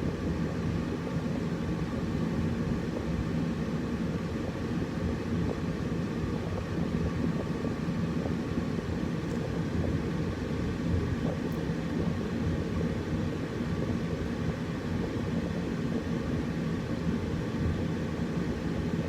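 Air conditioner running steadily: a constant low hum with a few steady humming tones under an even rush of air.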